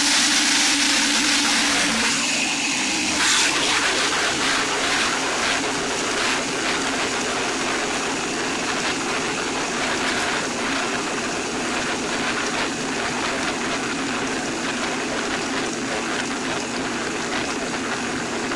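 Super Slusher margarita machine, a high-volume motorized blender, running and pulverizing a full bowl of ice with tequila and margarita mix into frozen slush. It makes a steady, loud whir with a constant crackle of ice, a little louder over the first few seconds before settling.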